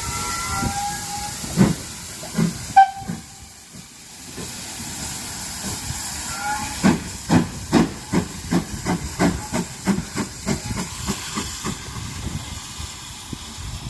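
GWR 4500-class 2-6-2 tank locomotive 4555 hissing steam, with a few short high squeals near the start, then moving off with regular chuffs that slowly quicken from about halfway through.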